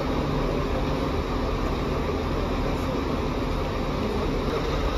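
Steady running noise of a bus engine with a low, even hum and no change in pitch or level.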